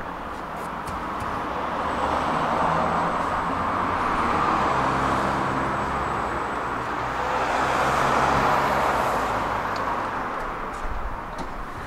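Road traffic going by: a steady noise that swells as one vehicle passes about three to five seconds in and another about eight seconds in, then eases off.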